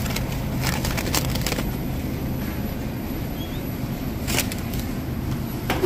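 Grocery store ambience: a steady low hum, with a few short clicks and rustles over it in the first second or so, again about four and a half seconds in, and near the end.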